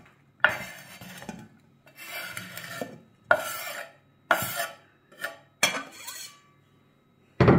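A knife scraping chopped mushrooms off a wooden cutting board into a bowl, in about six separate scraping strokes. Near the end there is one loud knock, the loudest sound here.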